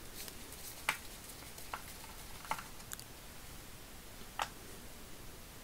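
Plastic socket-set case being handled and opened: about five light, scattered clicks and taps.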